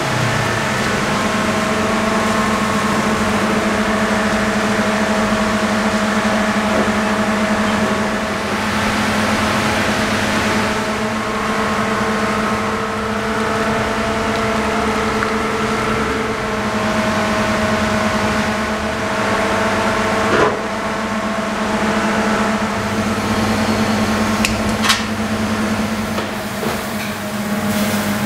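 A motor running with a steady hum: one strong low tone and several fainter, higher tones that shift a little in pitch. It is broken by two sharp clicks, one about twenty seconds in and one near twenty-five seconds.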